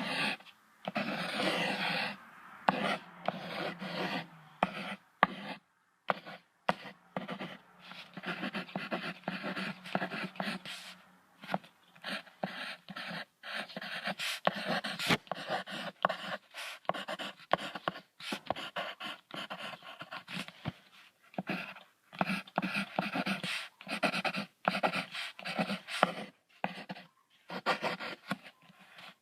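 Lynx making a long run of irregular, breathy, noisy sounds in short choppy bursts.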